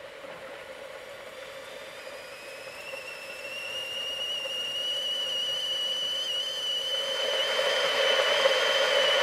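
Kettle coming to the boil: a steam hiss with a whistle that sets in about two seconds in, creeps slowly up in pitch and grows steadily louder.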